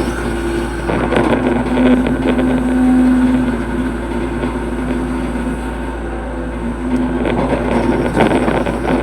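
Hitachi hydraulic excavator's diesel engine running under digging load, with a steady drone that swells for a couple of seconds, and a few clatters from the working bucket about a second in and near the end.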